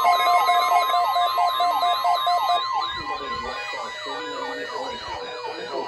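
Electronic sirens, several overlapping, sweeping rapidly up and down about three times a second, with a steady high tone held alongside. They drop noticeably in level about three seconds in.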